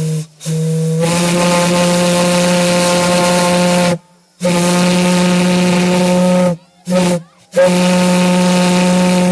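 A steam whistle fed from a steam plant line, blown in repeated blasts: a brief toot, then three long blasts of a few seconds each with a short toot between the last two. Each blast is a low, steady, many-toned note with a hiss of steam over it.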